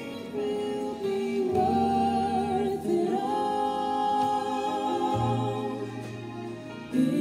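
A recorded song playing: voices singing long held notes with vibrato, over occasional low bass notes.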